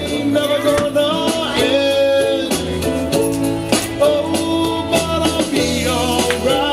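Background music: a song with singing over guitar and a steady beat.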